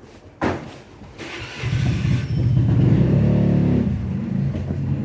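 A sharp knock, then an engine starting and running steadily with a low, even hum that sets in about a second and a half in.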